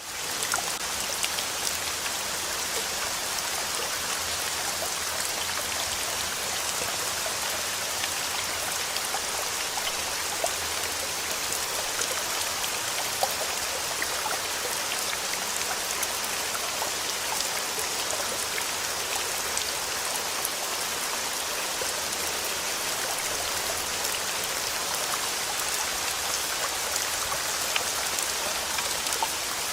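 Steady rain falling: a dense, even hiss scattered with sharp ticks of individual drops.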